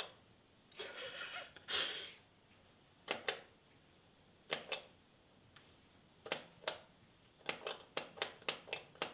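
A series of short, sharp clicks: a few scattered ones at first, then a quick run of about two or three a second near the end. Two brief hissing rushes come about a second in.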